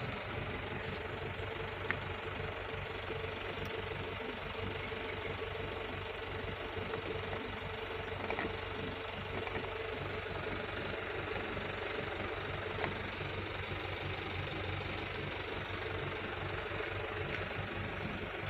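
A vehicle engine idling steadily, with a few faint clicks.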